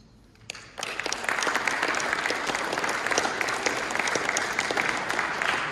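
Audience applauding. The clapping starts about a second in and then keeps going at a steady level.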